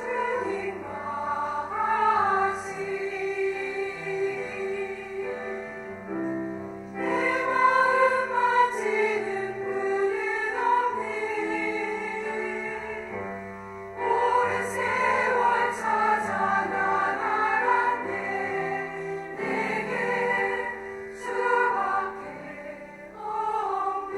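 Women's choir singing a hymn with piano accompaniment, in sustained phrases.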